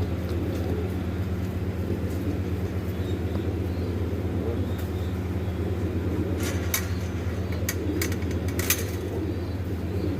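Steady low hum of a running motor, with several sharp clicks between about six and nine seconds in.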